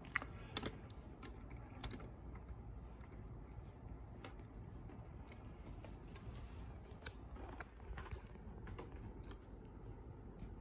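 Light, scattered metallic clicks and taps from a lever padlock and lock-picking tools being handled, a few sharper clicks in the first two seconds, then fainter irregular ticks.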